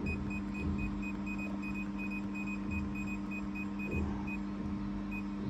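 Short high touchscreen key beeps from a laser cleaning machine's control panel, about four a second, as the red-light offset arrow is tapped repeatedly. They stop about four seconds in, with one more near the end, over the machine's steady low hum.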